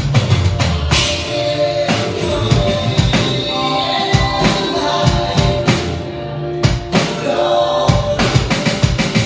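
Roland TD-30K V-Drums electronic drum kit played through its amplifier: a rock drum groove over a backing song with singing. A quick run of hits comes near the end.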